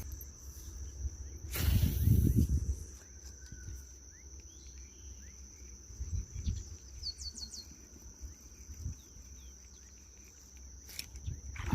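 A steady, high-pitched insect drone, with a short run of quick bird chirps about seven seconds in. A brief rustling noise about two seconds in is the loudest moment.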